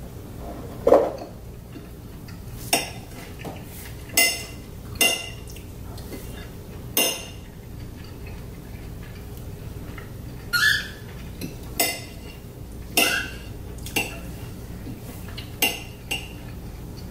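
Forks and knives clinking and scraping against dinner plates: about a dozen short, irregular clinks, a few with a brief ringing tone.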